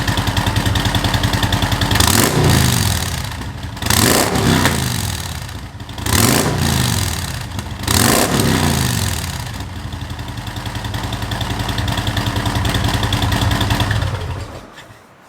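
Harley-Davidson V-twin running through Rinehart exhaust with FuelMoto tunable inserts freshly fitted in the mufflers. It idles, is revved and let fall back four times about two seconds apart, settles back to idle, then is shut off just before the end.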